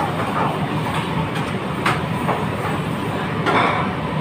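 Steady roar of a busy commercial kitchen, with a short sharp clatter about two seconds in.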